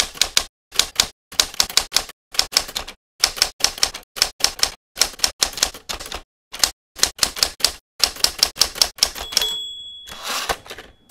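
Manual typewriter being typed on: quick clusters of sharp key strikes with short pauses between words. Near the end a bell rings and keeps ringing while the carriage is slid back.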